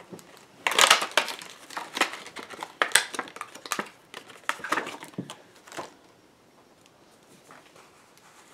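Plastic wrapping crinkling and crackling as it is pulled off a plastic nail brush cleaning jar, stopping about six seconds in.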